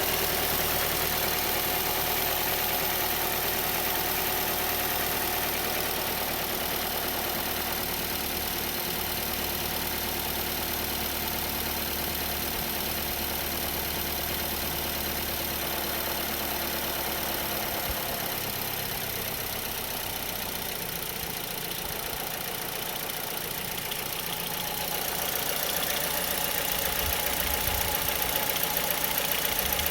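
Mazda 6 (GH) 2.0-litre four-cylinder petrol engine idling cold with a knock, the cold-engine knocking the owner is showing. The sound grows louder in the last few seconds.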